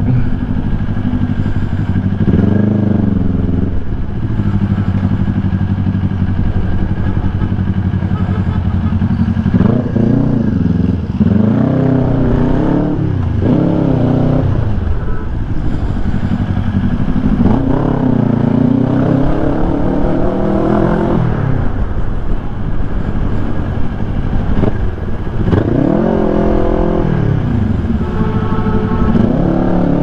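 Kawasaki Ninja 400 parallel-twin through a Yoshimura R11 full-system exhaust, riding in traffic. It runs steadily low for the first several seconds, then the revs rise and fall again and again as the throttle is opened and closed. Heard through a microphone inside the rider's helmet.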